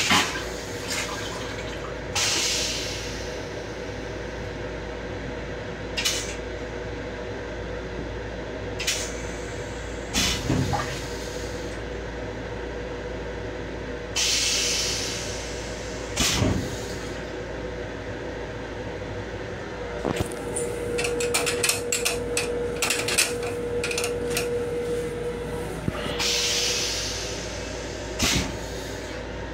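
Train restroom toilet running its flush cycle: short hissing sprays of rinse water into the stainless-steel bowl, the longest about twelve seconds apart. They come over the steady hum of the railcar, with a run of rattling clicks about two-thirds of the way in.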